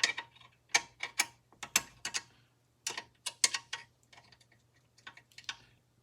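Small metal clicks and clinks of Allen keys being handled and tried in the saw's screws, in irregular clusters through the first four seconds, then fainter and sparser.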